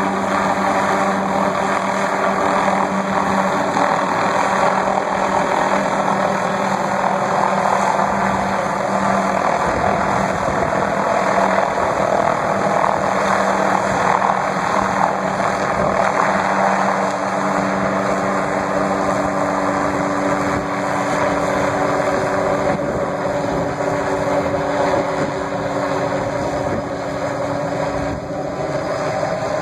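Light helicopter in flight, its rotor and engine running steadily with a constant low hum. It grows slightly fainter near the end as it moves away.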